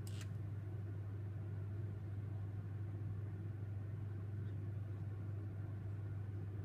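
Steady low room hum with a faint even hiss and a brief click at the very start.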